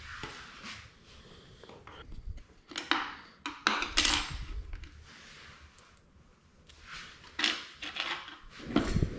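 Irregular metallic clinks and short scrapes of a steel hex key working the skid-plate bolts under a Sur Ron electric dirt bike's frame.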